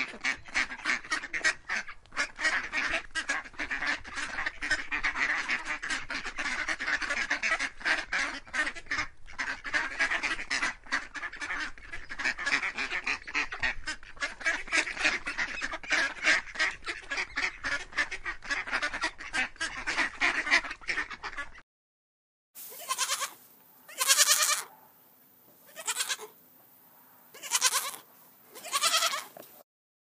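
A brood of ducklings peeping continuously, many rapid high peeps overlapping. After a sudden cut about 22 seconds in, a young goat kid bleats five times.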